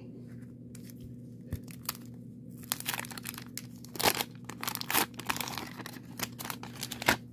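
Wax-paper wrapper of a 1990 Donruss baseball card pack being torn open and crinkled by hand. A few small clicks come first, then a dense run of crackling and tearing from about three seconds in, with the loudest rips near four seconds and near the end. A steady low hum runs underneath.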